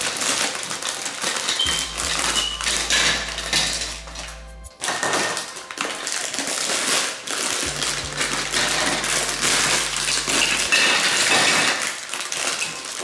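Hard plastic marble-run track pieces clattering and clinking together as they are shaken and tipped out of their plastic bags onto a table, with a short lull about four and a half seconds in.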